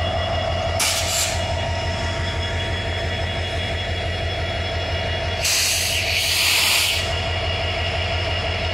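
Indian Railways diesel locomotive engine running with a steady, loud drone. Two bursts of hissing air come over it, a short one about a second in and a longer one between about five and a half and seven seconds in.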